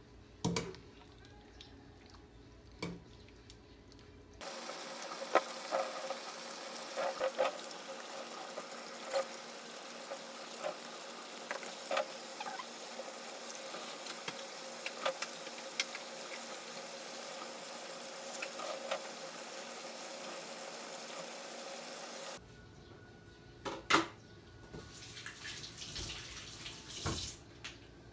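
Kitchen tap running steadily into a sink for about eighteen seconds, with light clinks and knocks of kitchenware throughout. It starts and stops abruptly, and a few knocks come before and after.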